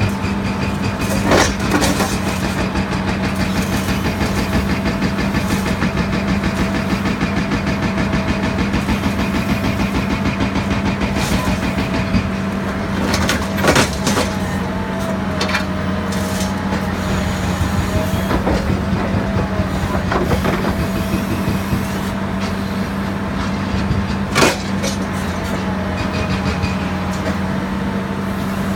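Excavator working a hydraulic scrap shear: the engine and hydraulics run with a steady hum and a wavering whine, broken by a few sharp clanks.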